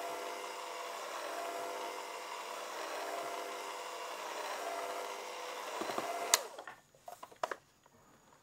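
Electric hand mixer running steadily with a motor whine, its wire beaters whipping cream and mascarpone in a bowl; it cuts off with a sharp click about six seconds in, followed by a few light knocks.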